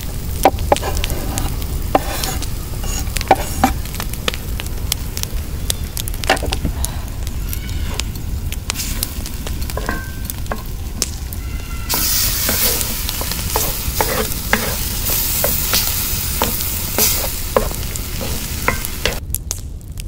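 Wooden spatula stirring and scraping mashed eggplant around a cast-iron skillet, with the food sizzling in hot oil over a wood fire. The sizzle grows louder about twelve seconds in and drops away just before the end.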